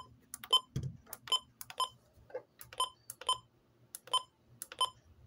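A weather radio receiver's keypad beeping as its menu buttons are pressed: about eight short electronic beeps, each starting with a button click, at uneven intervals, with a soft handling thump about a second in.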